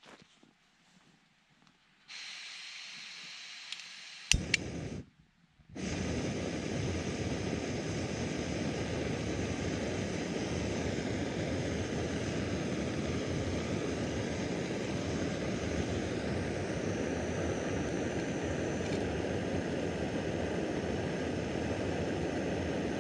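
Jetboil gas canister stove: about two seconds in, gas hisses from the opened valve, and a sharp click of the igniter comes a couple of seconds later. After a short break, the burner runs with a steady rushing noise under the cup.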